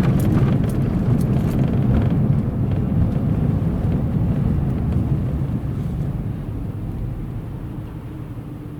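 Car being driven, heard from inside: a steady low rumble of engine and road noise, with a few light clicks in the first two seconds, easing off over the last few seconds.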